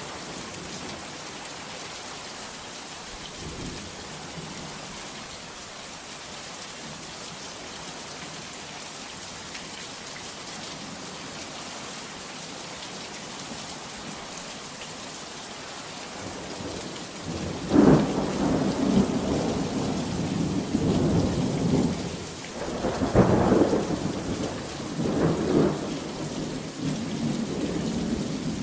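Heavy rain falling steadily. About two-thirds of the way in, thunder breaks with a sudden loud clap and rolls on in several rumbling swells to the end.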